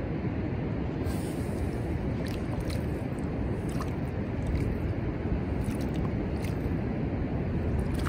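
Wind buffeting the microphone over the steady rush of ocean surf, with a few faint ticks.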